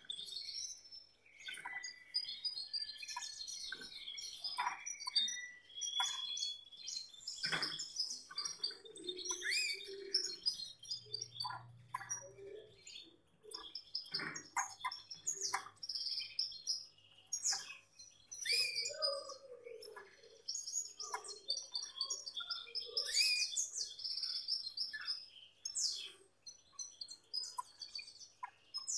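Male Gloster canary singing: a long, varied run of chirps, whistled notes and trills with short breaks, the excited breeding-season song a male uses to stimulate the female.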